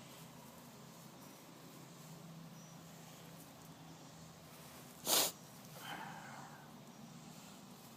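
Miniature schnauzer puppy giving one short, sharp sneeze or snort about five seconds in, followed by a fainter snuffle.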